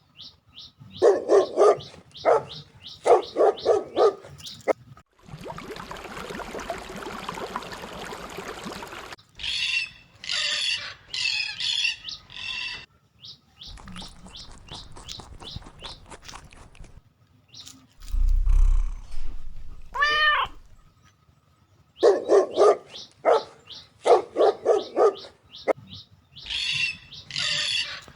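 A dog barking in quick runs, twice, alternating with pet birds chirping. Between them comes a few seconds of steady hiss and one drawn-out call with a rising-then-falling pitch.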